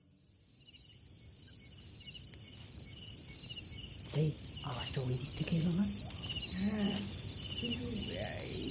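Night ambience of crickets chirping steadily in repeated pulses. From about four seconds in, faint distant voices and a few light clicks join in.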